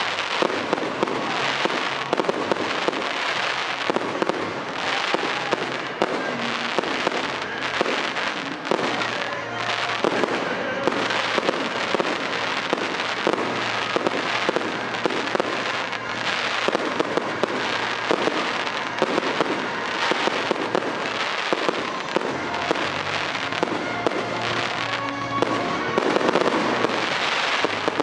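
Aerial fireworks shells bursting in a dense, unbroken run of bangs and crackling.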